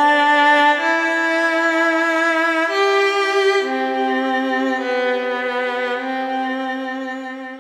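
Slow orchestral music led by a bowed violin: long held notes with vibrato, changing about once a second, fading out at the end.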